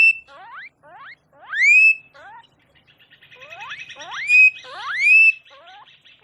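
An animal calling: loud whistled calls that sweep up in pitch and level off, four of them, with quicker, softer rising chirps in between and a buzzy chatter in the middle.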